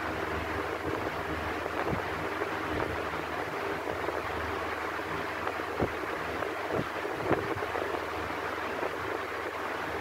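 Electric fan running steadily: an even rush of moving air with a low motor hum beneath it. A few short clicks come a little past halfway.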